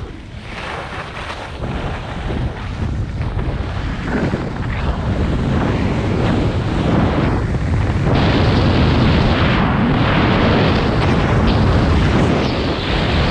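Wind rushing over the microphone and skis scraping and hissing over packed groomed snow on a downhill ski run, getting louder from about eight seconds in.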